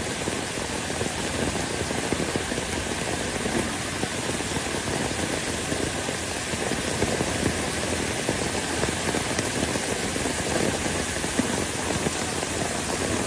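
Rushing water in heavy rain or flood: a steady, even hiss with no breaks.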